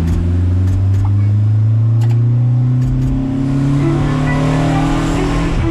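Volkswagen Saveiro pickup's engine pulling in gear, its pitch climbing steadily for about five seconds, then dropping as it shifts up at the very end.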